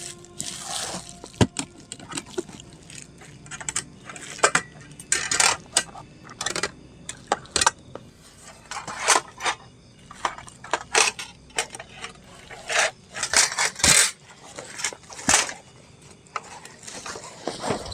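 Camping gear being tidied by hand: bags and a sleeping bag rustling and shuffling in irregular bursts, with occasional knocks and clinks.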